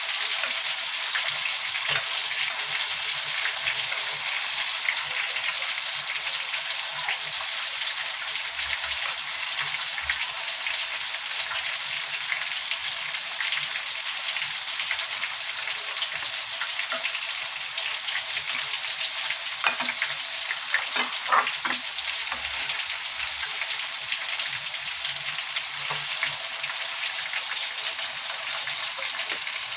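Chicken pieces frying in hot canola oil: a steady sizzling hiss with scattered pops, and a cluster of louder crackles about two-thirds of the way through.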